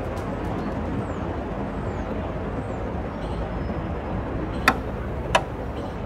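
Steady outdoor urban background noise, with two short sharp clicks a little under a second apart near the end.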